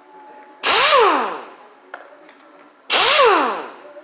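Power drill run in two short trigger bursts, each about a second long. In each burst the motor's pitch climbs quickly and then winds down.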